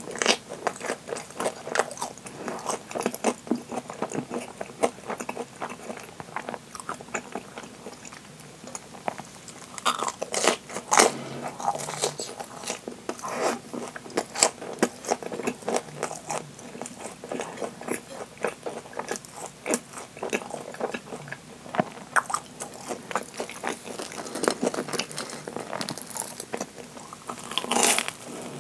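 Chewing and crunching of deep-fried, breadcrumb-coated Japanese curry bread (karē pan), the crisp crust crackling in quick clicks with each chew. There are louder crunchy bites about ten seconds in and again near the end.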